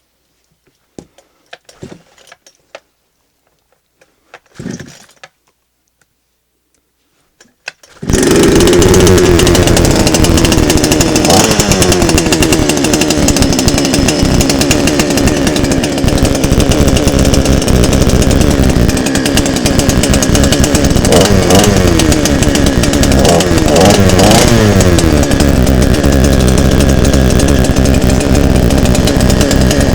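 A few faint knocks of handling, then a Forte FGS 52 chainsaw's 52 cc two-stroke engine starts about eight seconds in and runs loudly, revved up and down several times in a test run.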